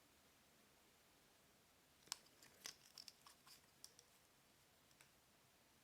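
Faint handling noise: a quick cluster of soft plastic clicks and crinkles about two seconds in, lasting about two seconds, then one more click near the end, as a small plug-in power adapter and its packaging are handled.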